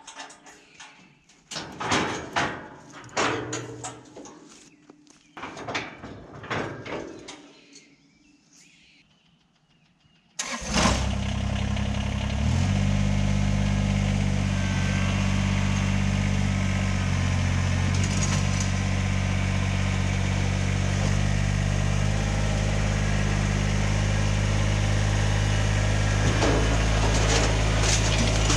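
A few scattered knocks and clicks, then about ten seconds in the Kubota BX23S tractor's three-cylinder diesel engine starts up. It settles to a lower, steady running note a couple of seconds later.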